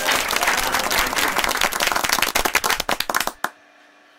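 Crowd applause added as an edited sound effect: dense clapping that thins to scattered claps and cuts off abruptly about three and a half seconds in. It is followed by faint room tone with a low steady hum.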